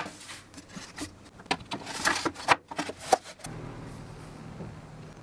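Several light knocks, taps and scrapes of wooden workpieces being handled. About three and a half seconds in they give way to a steady low hum.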